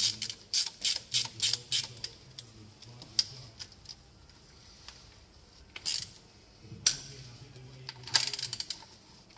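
Ratchet wrench clicking as a bolt at the engine's crankshaft pulley end is turned: a quick run of clicks, about three a second, for the first two seconds, a few single clicks, then a faster flurry of clicks near the end.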